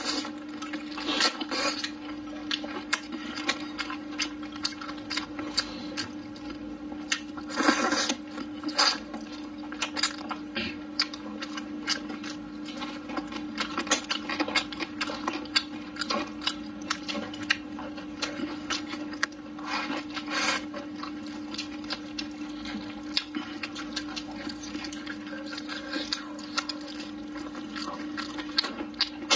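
Close-mouthed chewing and lip-smacking on sticky braised pork trotter: rapid wet clicks and smacks, with a few louder bites, over a steady hum.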